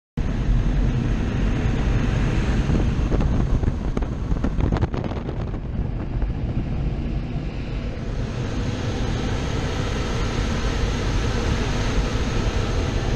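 Automatic car wash air dryer blowers blasting air in through an open car window: a loud, steady rush of air with wind buffeting on the microphone.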